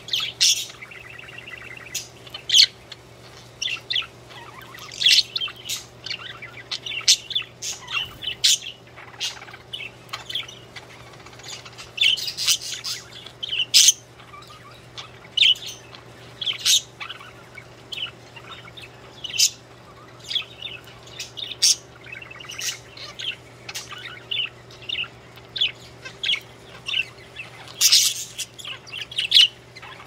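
Pet budgerigars singing: a busy run of short, sharp chirps and warbling chatter, several calls a second with brief pauses. A faint steady hum sits underneath.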